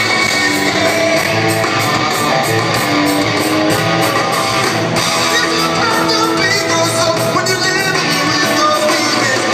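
Live rock band playing loud through a concert hall's PA, heard from among the audience: electric guitars over a steady drum beat.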